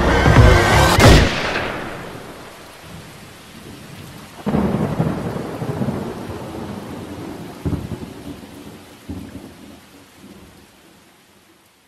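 Music cuts off about a second in, then a thunderstorm: steady rain with a loud thunder roll about four and a half seconds in and two shorter claps later, fading away near the end.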